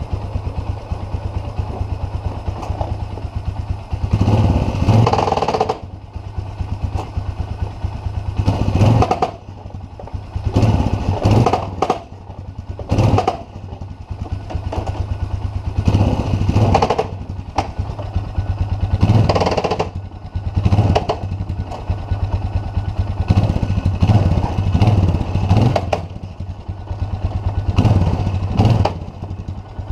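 2011 Polaris Sportsman 500 ATV's single-cylinder engine idling, with about ten short bursts of throttle. Each burst brings a harsh clatter from the transmission: the stretched main drive chain skipping over the gear teeth.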